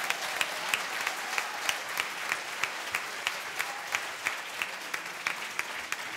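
Audience applauding, with distinct claps standing out about three times a second.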